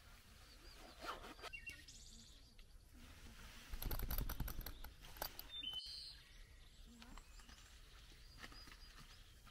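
Faint bird chirps, with a few light clicks and a soft rustle of handling about four seconds in.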